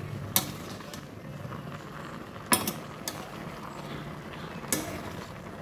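A metal spoon stirring chopped ash gourd in a steel frying pan, clinking against the pan four times over a low steady background noise.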